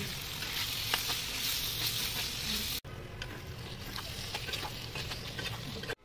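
Chicken curry sizzling in a wok while a metal spatula stirs it, with scattered short clicks over the steady hiss. The sound drops out for an instant about three seconds in, and the sizzle is softer afterwards.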